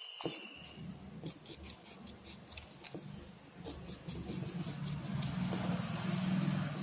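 Scissors snipping through folded craft paper in a quick run of short cuts through the first half. From about four seconds in, a low steady hum grows louder and becomes the loudest sound, then drops away at the end.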